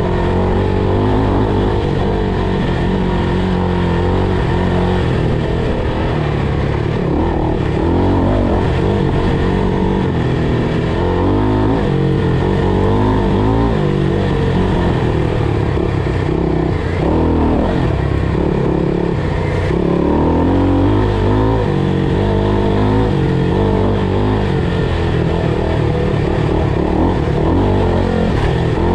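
FPV quadcopter's motors and propellers whining, the pitch rising and falling over and over with the throttle.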